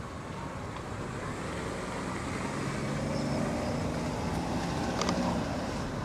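Low, steady rumble of road traffic with a vehicle passing, swelling through the middle, with a few short sharp clicks near the end.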